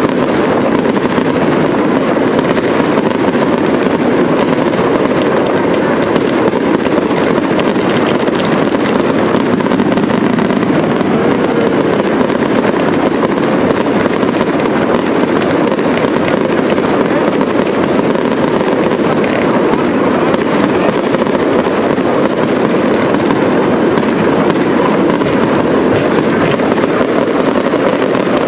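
Professional fireworks display, with fountains and aerial shells going off in a dense, unbroken barrage of crackling and bangs.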